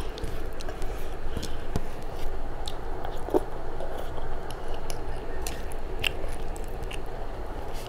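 Close-miked chewing and mouth sounds of a person eating a mouthful of rice and mashed pumpkin leaves by hand, with many small sharp clicks from lips and tongue.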